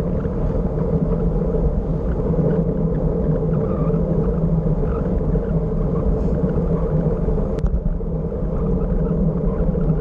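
Wind rushing over a bicycle-mounted camera's microphone while riding, a steady low rumble, with one faint click near the end.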